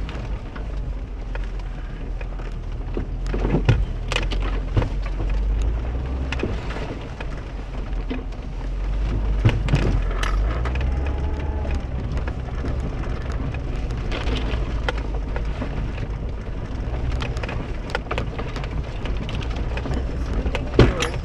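Mercedes car engine running at low revs as the car crawls slowly over a rutted, muddy forest track, heard from inside the cabin, with frequent sharp knocks and rattles from the body and suspension hitting bumps and ruts.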